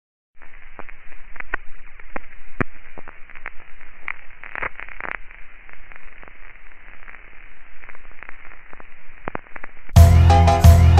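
Static hiss with scattered crackles and pops, muffled like sound from an old radio. About ten seconds in, music with a heavy beat cuts in much louder.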